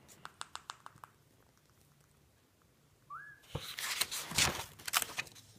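A page of a spiral-bound sketchbook being turned by hand: about two seconds of paper rustling and crackling near the end. Earlier there is a quick run of short high chirps, and just after the middle a single short rising squeak.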